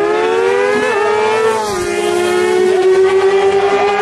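Kawasaki Ninja ZX-6R 636 inline-four sport bikes accelerating hard off a drag-race start: the engine note climbs steadily in pitch, drops at a gear change a little under two seconds in, then holds level.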